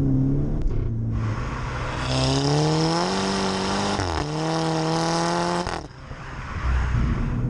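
Exhaust note of a MK6 Golf GTI's turbocharged 2.0-litre four-cylinder, fitted with an aftermarket exhaust, under hard acceleration. The revs climb, fall briefly at a quick upshift about four seconds in, climb again, then the throttle is lifted just before six seconds and the sound falls away sharply to a quieter steady cruise.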